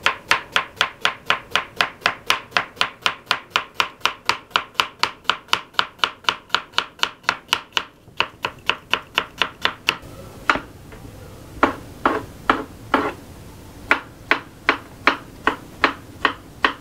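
A kitchen knife chopping on a wooden cutting board. It starts with quick, even strokes slicing a red onion, about four a second. From about ten seconds in come slower, uneven chops through tomato over a steady hiss.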